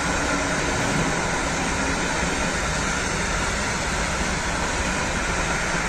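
Freight train of covered hopper wagons rolling past, a steady, even noise of wagon wheels running on the rails.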